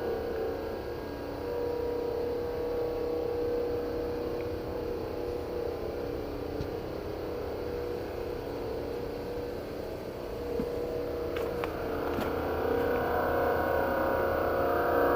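Steady droning hum made of several held tones, the mysterious 'strange sound in the sky', growing a little louder near the end.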